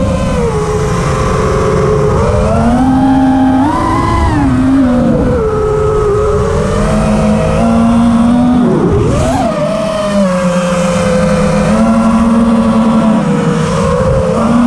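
FPV quadcopter's brushless motors and propellers whining, heard from the onboard camera, the pitch rising and falling with the throttle during a slow flight. About nine seconds in the pitch drops sharply and sweeps back up.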